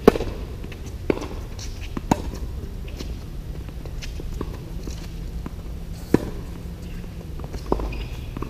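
Tennis rally on a hard court: a serve struck with a sharp pop, then racquet hits and ball bounces trading back and forth, a pop every second or so. The serve is the loudest, with another loud hit about six seconds in.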